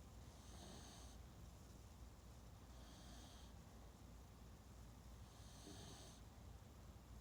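Faint, gentle snoring: three slow breaths about two and a half seconds apart, each with a soft high hiss.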